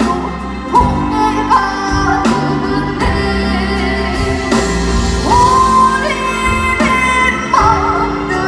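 Live band playing with a lead singer over the PA. The singer holds long notes and slides between pitches, and the band accompanies throughout.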